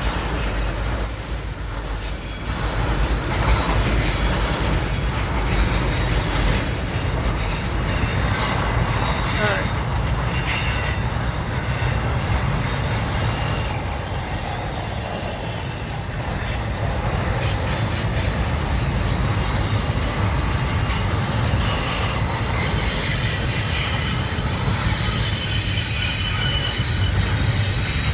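Florida East Coast Railway freight train passing, a steady low rumble of the cars with long, thin, high-pitched wheel squeals that come and go in the second half.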